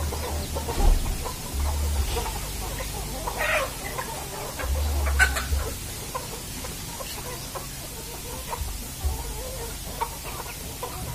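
A flock of free-range village chickens clucking, with a few sharper short calls about three and five seconds in. A low rumble comes and goes underneath.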